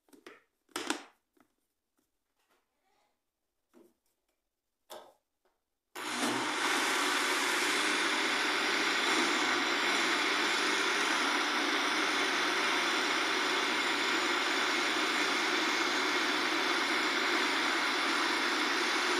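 A few light knocks, then about six seconds in a countertop blender switches on and runs steadily, mixing a thick cornmeal cake batter.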